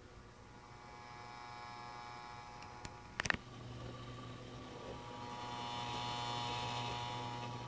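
Western Digital WD5000AAKS 7200 rpm desktop hard drive spinning with a steady resonant hum made of several steady tones, swelling louder for a couple of seconds past the middle. A couple of sharp clicks come about three seconds in. The owner puts the resonance down to wear, with the drive's head needing many tracking corrections.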